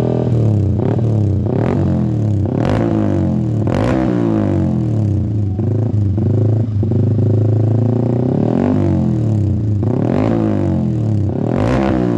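Yamaha MT-15's single-cylinder engine revved over and over through a loud aftermarket Tritec Racing Evolution FOX exhaust, the pitch climbing and falling with each blip over a deep, bassy note. A few sharp cracks come among the revs.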